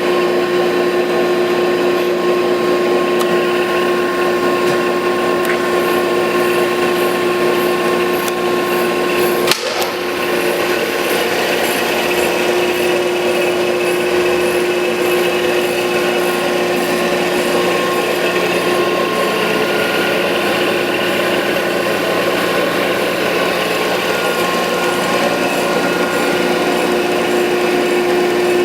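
Landis 1R universal cylindrical grinder running under power: a steady machine hum with a strong steady tone. A sharp click and a brief dip come about nine and a half seconds in.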